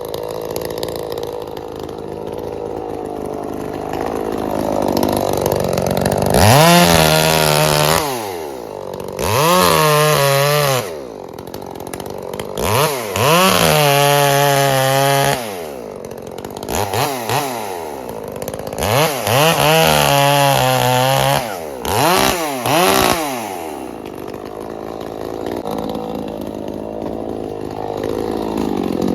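Two-stroke chainsaw idling, then revved up about six times, several revs held for a second or two, dropping back to idle between them and near the end.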